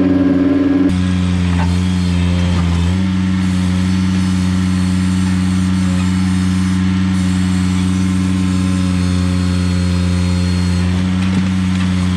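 Ventrac 4500Z compact tractor's engine running steadily under work, its note shifting about a second in and settling slightly higher about three seconds in.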